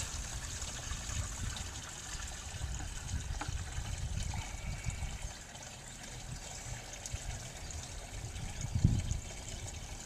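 Water pouring steadily from a large plastic bucket through a cotton t-shirt filter into the feed bucket of a gravity-fed drip irrigation kit, which is being filled all at once.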